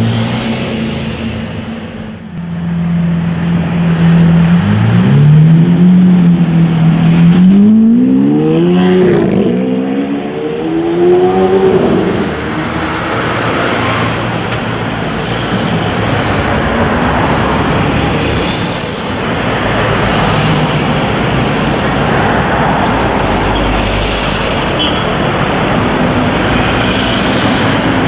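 DMC-tuned Lamborghini Aventador V12 held at steady revs, then accelerating hard. From about five seconds in its pitch climbs in several rising sweeps through the gears, and after about twelve seconds it gives way to steady city traffic noise.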